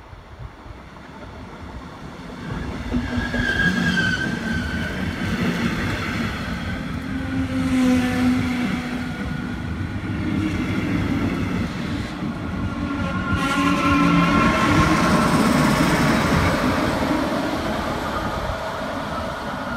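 Double-deck regional train running past on the platform track, pushed by a DB class 112 electric locomotive: a rising rumble of wheels and running gear with a few steady humming tones, loudest as the rear of the train and the locomotive come by near the end.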